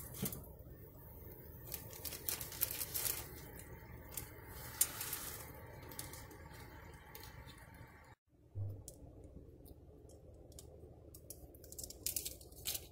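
Instant ramen noodle packet being handled and torn open: plastic crinkling and tearing, with scattered light clicks and knocks.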